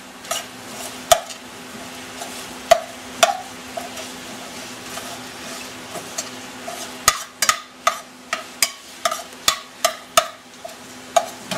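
Ground Italian sausage sizzling in a stainless steel pan while a metal slotted spoon stirs and breaks it up, clinking and scraping against the pan. The clinks come sparsely at first, then quickly, about two or three a second, from about seven seconds in.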